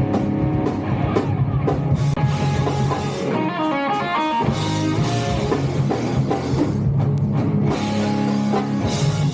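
Rock band playing live: electric guitar, bass and drum kit, with a run of quick notes about halfway through and a cymbal crash near the end.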